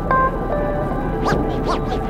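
Background music with held notes, a sharp new note just after the start and two rising swoops near the end.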